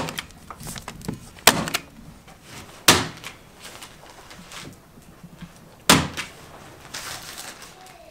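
Bostitch electric stapler firing three sharp snaps a few seconds apart, driving staples through the kraft paper facing of fiberglass insulation into wooden floor joists. A fainter noisy burst comes near the end.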